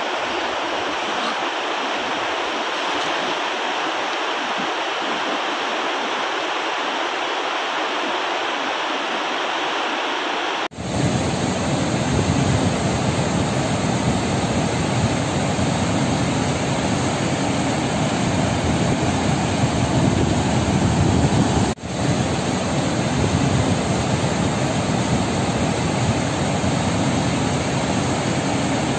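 Steady rush of flowing river water. About ten seconds in it changes abruptly to a louder, deeper rush of water pouring over a low weir, with a brief dropout at a cut about twenty-two seconds in.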